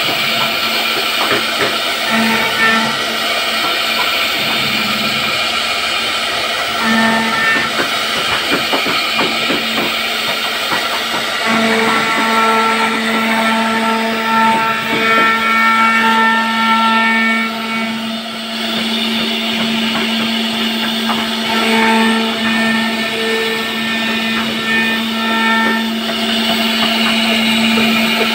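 CNC router spindle carving a wooden door panel: a steady whine, its overtones swelling and fading in stretches as the bit works through the wood, over a dense crackle of cutting.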